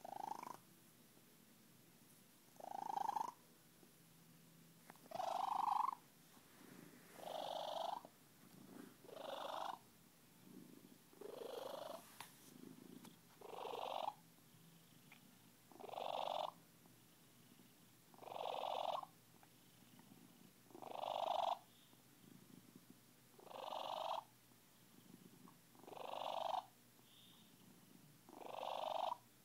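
Siamese cat purring, in strong swells about every two and a half seconds, one with each breath, with quiet gaps between: a happy, contented cat.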